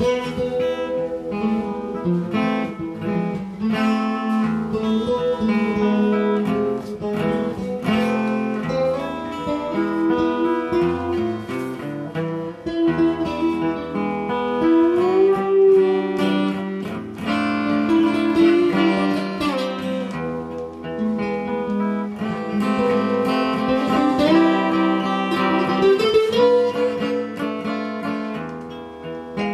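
Two acoustic guitars playing soleares, the traditional flamenco song form, mixing strummed chords with picked melody lines.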